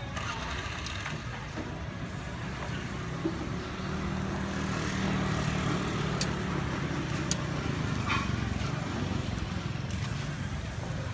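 A steady low engine-like hum under the hiss of pork slices sizzling on a charcoal grill, with two sharp metallic clicks of tongs against the steel grate about six and seven seconds in.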